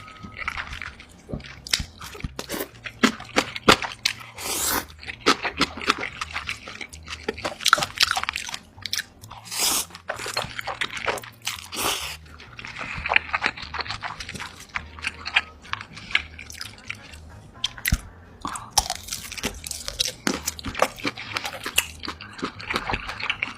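A person biting and chewing crunchy food close to the microphone: a dense, irregular run of sharp crunches and crackles.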